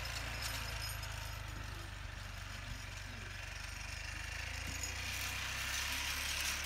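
Small off-road vehicle's engine running steadily as it drives across snow, heard as a low even hum, with a soft hiss over it.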